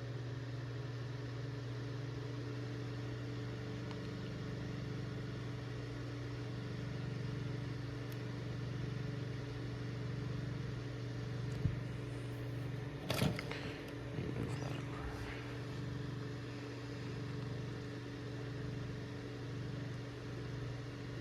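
Duracraft two-speed table fan running on low speed: a steady electric motor hum with a rush of air, gently swelling and fading about once a second. A sharp click and a brief rustle about halfway through.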